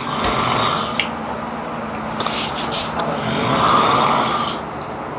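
A sleeping person snoring: two long snores with a low buzz, about two seconds each, a second apart.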